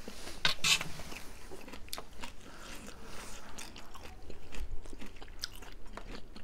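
Chewing a mouthful of buffalo chowmein noodles, with short clicks scattered irregularly, two of them close together in the first second.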